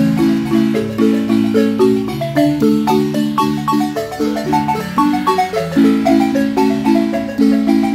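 A large wooden marimba played by several players at once with ball-headed mallets, playing a traditional Guatemalan son. Long held, rolled notes in the low register sound under a quicker melody line higher up.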